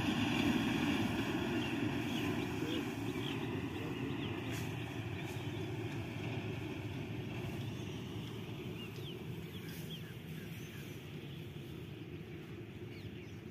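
A truck's engine running steadily and fading slowly as it draws away, with a few faint bird chirps in the second half.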